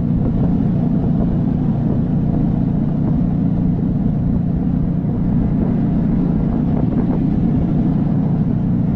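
Engine and road noise from on board a moving vehicle: a steady low drone with no break or change.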